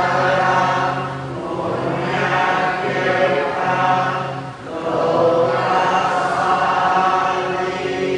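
Buddhist chanting by a group of voices: long phrases held on a near-steady pitch, with two short breaks about a second in and near the middle.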